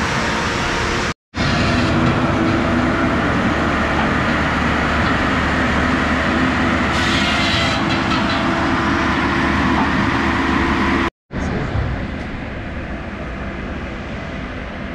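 Steady mechanical noise of heavy equipment running at an outdoor machinery show, with a low engine hum underneath. It cuts out briefly twice and is quieter over the last few seconds.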